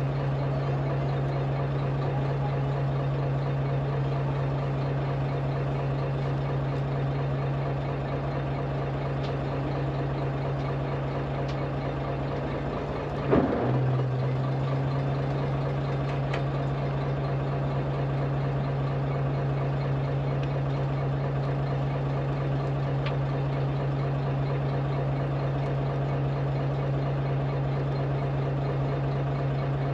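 Chartered fishing boat's engine idling with a steady hum, and a single sharp knock about thirteen seconds in.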